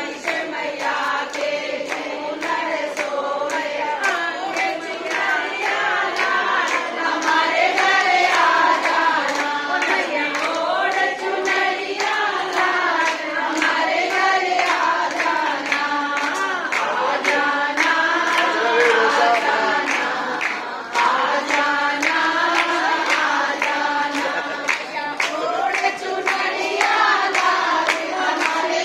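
A group of women singing a Hindi devotional bhajan together in unison, clapping their hands in a steady rhythm to keep time.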